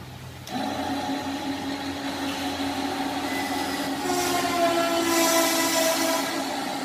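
Drive motor of a small truck-mounted crane starting up about half a second in and running with a steady whine as it works the boom and lowers the hook. A second, higher, wavering whine joins about four seconds in, with a hiss around five seconds.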